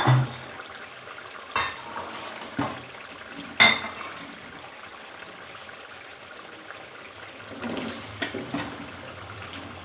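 Watery tomato-onion masala simmering in a steel kadai with a steady bubbling hiss, and a wooden spoon knocking sharply against the metal twice in the first few seconds. Near the end, a run of soft knocks as chunks of bottle gourd are dropped into the sauce.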